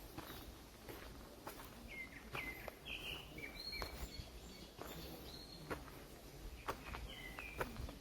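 Footsteps on a trail with small birds chirping: short high notes in a cluster about two to four seconds in and again near the end.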